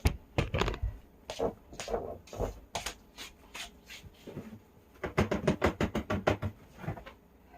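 Scattered knocks and clatter as a dustpan of sweepings is carried off and emptied, with a quick run of taps about five seconds in.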